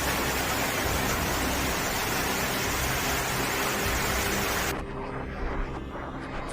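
Loud, even rushing noise with steady low tones underneath; it cuts off sharply about five seconds in, leaving fainter crackling.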